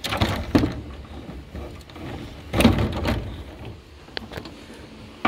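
Plastic cover of a mini split indoor unit being worked back onto its chassis: two bursts of plastic scraping and knocking, about two and a half seconds apart, and a sharp click near the end.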